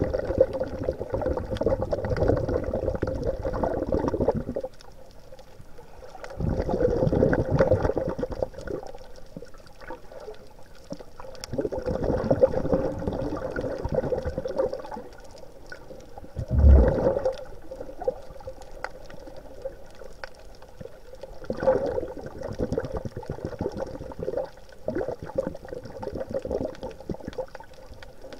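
Water sloshing and bubbling around the camera in bursts of a few seconds, with quieter stretches between them. About two-thirds of the way in there is a short, louder rush with a low thud.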